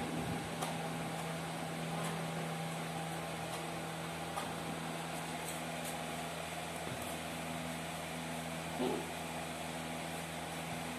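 A steady mechanical hum, like a running fan or appliance, with a few faint clicks and a brief louder sound about nine seconds in.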